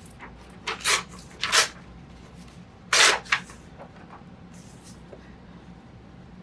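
Paper being torn and handled by hand: a few short papery rips and rustles, the loudest about three seconds in, then only quiet handling.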